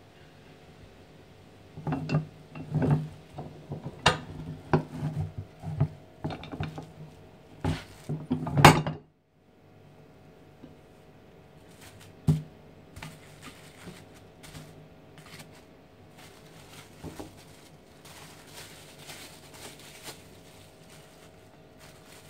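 Kitchen clatter: a quick run of sharp knocks and clinks lasting several seconds that cuts off suddenly, followed by quiet crinkling and rustling of cling film as it is handled over a tortilla press.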